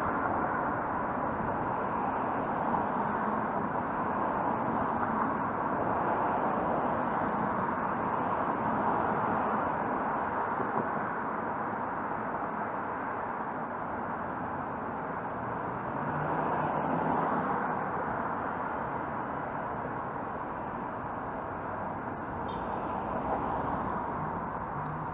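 Road traffic: cars driving past one after another on a multi-lane road. The rush of tyres and engines is steady, and it swells several times as single cars go by.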